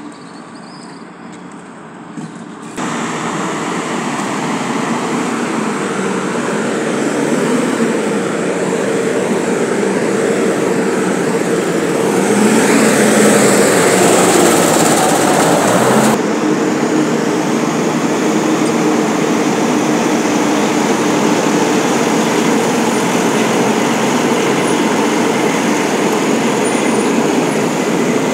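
Heavy diesel dump truck engines running as the trucks drive past, loudest and brightest when one passes close about halfway through. The sound steps up abruptly a few seconds in and drops abruptly again after the close pass.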